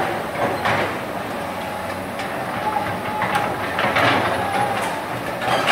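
Hydraulic crawler excavator digging soil: a diesel engine running steadily under load, with irregular metallic clanks and scrapes from the bucket and tracks a handful of times.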